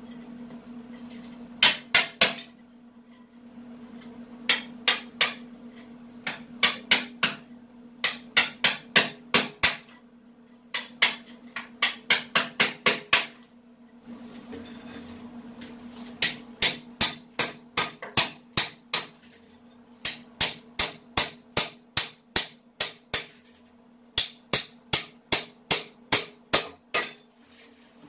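Hand hammer blows chipping away concrete around an exposed water pipe in a broken-open floor, struck in quick runs of about three to four blows a second with short pauses between runs. A faint steady low hum runs underneath.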